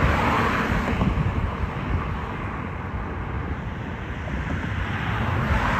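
Wind buffeting the microphone outdoors: a steady, gusty low noise with no distinct events.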